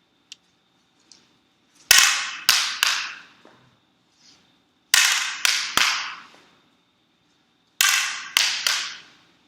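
Escrima sticks cracking against handheld training targets in quick combinations: three sets of three sharp strikes, each set about three seconds apart.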